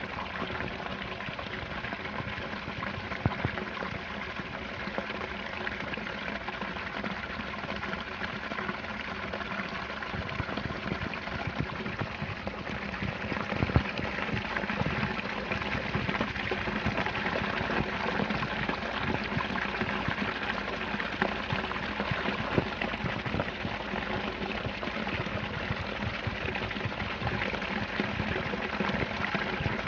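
A small waterfall: water falling and splashing steadily, with many small splashes, slightly louder about halfway through.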